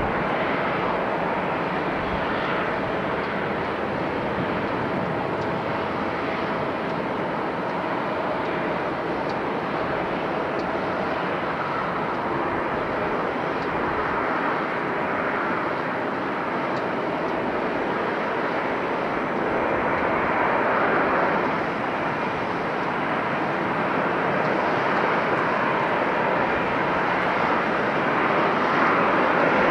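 Airbus A350-900's Rolls-Royce Trent XWB turbofans running at taxi idle after landing: a steady jet rush that gets a little louder near the end.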